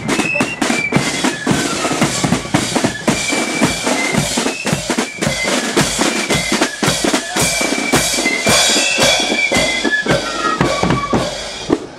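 Marching flute band playing: a line of flutes carries a high melody over rapid side-drum rolls and beats with a bass drum.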